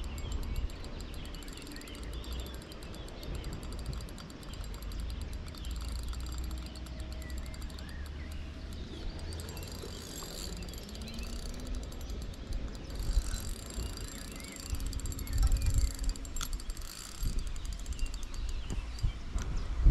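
Daiwa Black Widow baitrunner spinning reel being wound with a fast, fine ticking whirr while a hooked carp is played, over a low wind rumble on the microphone.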